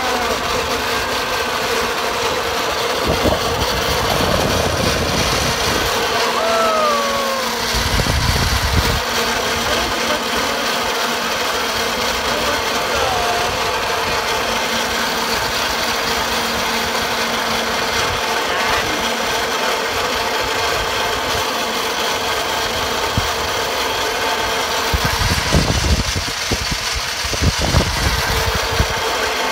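Zipline trolley pulleys running along the steel cable, a steady mechanical hum, with wind buffeting the microphone twice.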